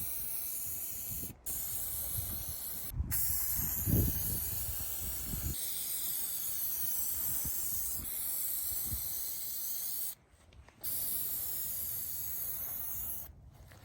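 Aerosol marking paint spraying with a steady hiss as lines and an X are marked on the ground. The hiss breaks off briefly a few times where the nozzle is let go, with a longer pause about ten seconds in, and stops near the end.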